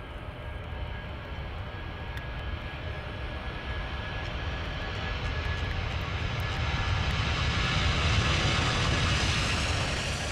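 Jet airliner engines at takeoff power: a continuous rushing noise with a faint high whine, growing steadily louder toward the end.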